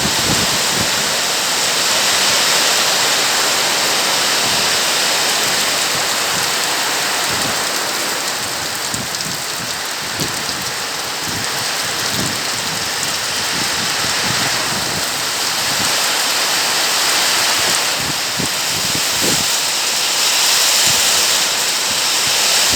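Heavy rain pouring down in a steady, loud hiss, with scattered short low thumps.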